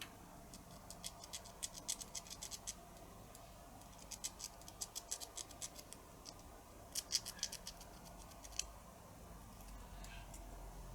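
Faint, quick scratchy ticking as the small azimuth motor's commutator is wiped clean of grunge. The ticking comes in three short runs with pauses between.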